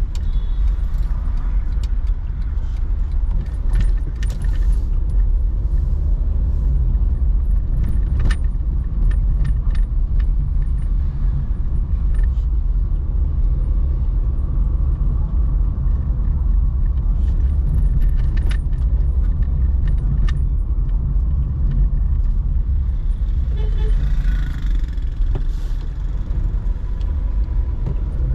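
Car on the move: a steady low rumble of engine and road noise, with scattered light clicks and rattles, and a short swell of higher noise about three-quarters of the way through.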